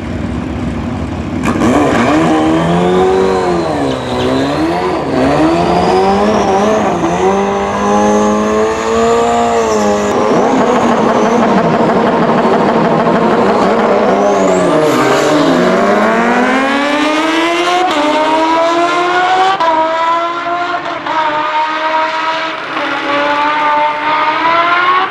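Two superbike engines, a turbocharged Suzuki Hayabusa and a supercharged Kawasaki Ninja H2, revving up and down repeatedly at the drag strip start line. Then they launch hard about halfway through and pull through the gears with quick upshifts, the pitch climbing in steps about every second and a half.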